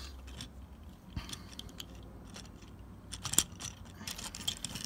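Small plastic Transformers figure being handled: scattered light clicks and rattles of its plastic parts and joints as its arm and gun are moved. There is one sharper click about three and a half seconds in and a quick run of clicks near the end.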